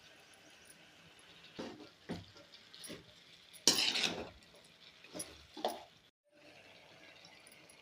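A spoon stirring and scraping in a cooking pan: a handful of separate scrapes and clinks, the loudest about halfway through, over a low sizzle.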